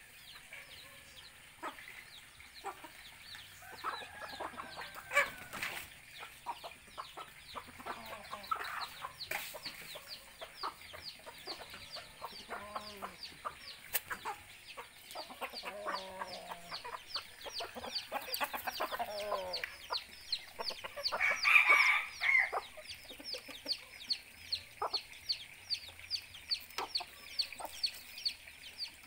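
Chickens clucking, with a rooster among them. One short, louder call comes about two-thirds of the way through, over rapid high-pitched chirping in the background.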